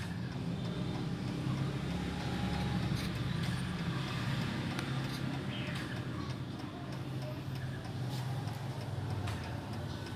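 Mechanical chime clock ticking faintly under a steady low background hum, with no chime sounding.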